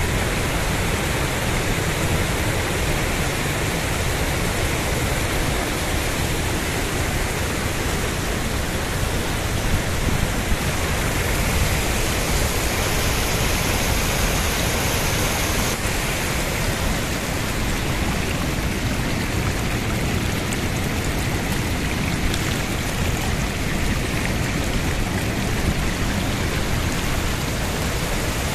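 Steady rushing of water: hot spring water pouring from a broken supply pipe and cascading over iron-stained rocks, mixed with a fast-flowing river.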